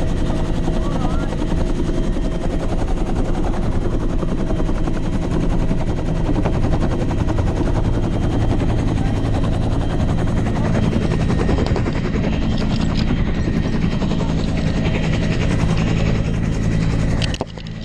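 Military helicopter's turbine and rotor noise inside the cabin: a loud, steady drone with a fast, even pulsing flutter. It drops out briefly just before the end.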